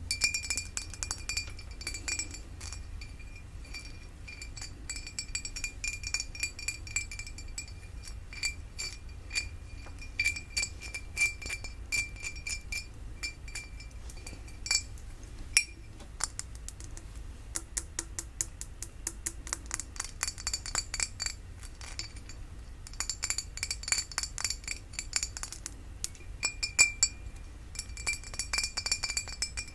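Glass flower vase tapped in quick, irregular runs, each tap making it ring with a clear high tone, with a couple of brief pauses partway through.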